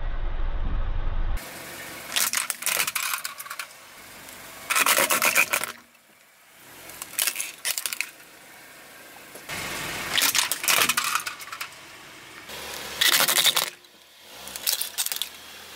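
Hard plastic toys cracking and crunching under a slowly rolling car tyre, in about six sharp crackling bursts a couple of seconds apart. There is a low rumble in the first second or so.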